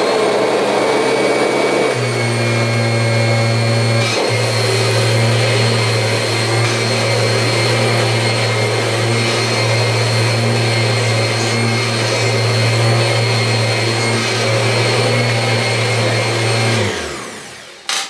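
Kirby G6 upright vacuum cleaner with standard brush roll running loudly and steadily while pushed in passes over sand-laden deep-pile carpet. A deeper hum joins about two seconds in. Near the end it is switched off and winds down.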